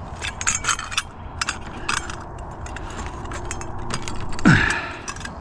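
Metal scrap being handled and pulled from a junk pile: a run of light clinks and rattles, then, about four and a half seconds in, a louder brief scrape that falls in pitch.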